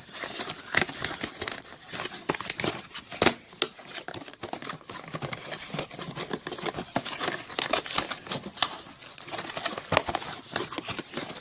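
Packaging crinkling and rustling with irregular clicks and snaps as a boxed webcam is pulled out of its tight packing and tape, the sharpest snap about three seconds in.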